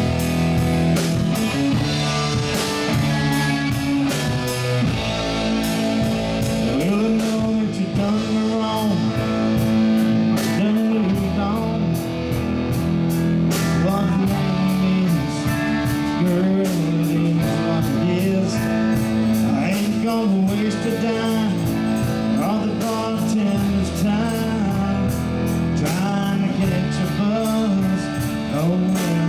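Live band playing a country-rock song: electric guitar with bending notes over bass and a steady drum beat.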